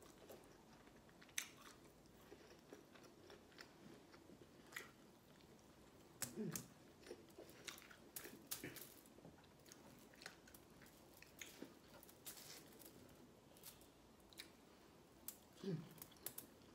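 Quiet, close-up eating sounds: a person chewing food eaten by hand, with soft mouth smacks and scattered sharp clicks that bunch together in the middle and again near the end.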